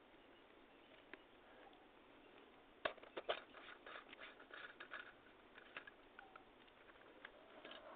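Faint clicks and light rattling from handling a rechargeable flashlight: a single click about a second in, a sharper click about three seconds in, then a run of small, irregular clicks.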